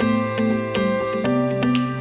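Background music: soft new-age instrumental with a steady run of notes over a held low note that shifts about a second in.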